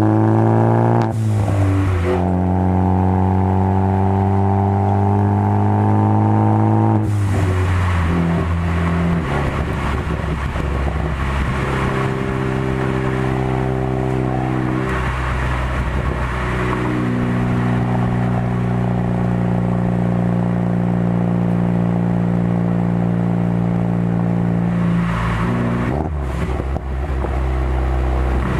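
2013 Ford Focus ST's turbocharged 2.0-litre four-cylinder engine through a Roush cat-back exhaust, driving: revs climb under acceleration, break at gear changes about a second in and about seven seconds in, then hold steady while cruising, with another change near the end.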